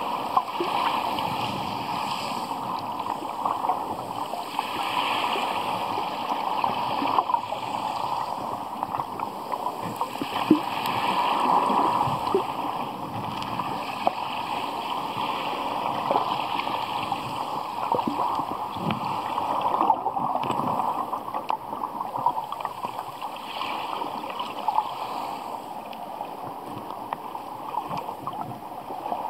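Muffled water noise recorded underwater in shallow sea over a pebble bottom: the swell surges and eases every few seconds, with scattered small clicks throughout.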